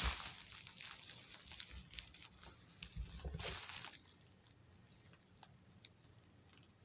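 Faint rustling and small clicks of hands handling a die-cast model train locomotive, for about four seconds, then only a few faint ticks.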